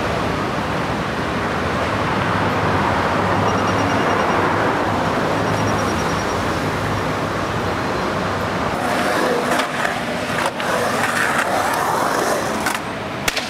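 Skateboard wheels rolling steadily over rough pavement, with a few sharp clacks of the board late on.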